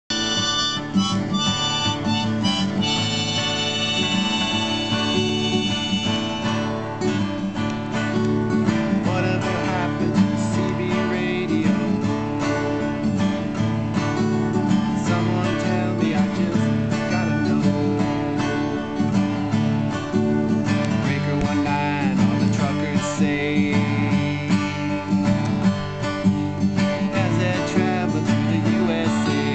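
Acoustic guitar strummed steadily with a harmonica played from a neck holder; the harmonica holds long high notes a few seconds in.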